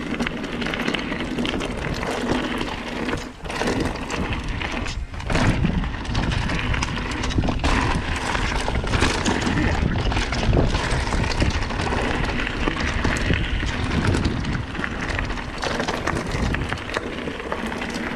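Mountain bike descending a rough trail: wind rushing over the camera microphone, with tyres rolling on the dirt and rock and the bike rattling and knocking over bumps.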